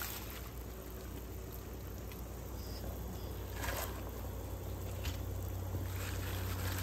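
A pot of chicken soup on the stove: a steady low hum and hiss, with a couple of soft knocks as greens are put into the pot.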